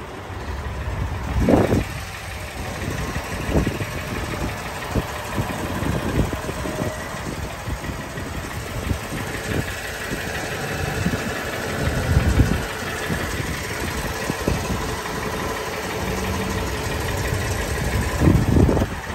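Low rumble of a vehicle engine idling, with wind buffeting the microphone in irregular gusts.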